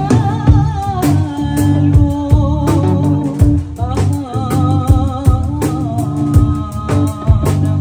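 Band music with a singer over bass and a steady drum beat.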